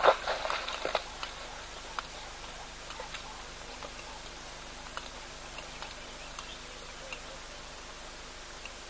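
Eland hooves splashing and clattering through the shallow muddy waterhole as the antelope bolt. There is a quick flurry, loudest just at the start, that dies away about a second in. After it comes a faint steady outdoor hiss with a few scattered single clicks.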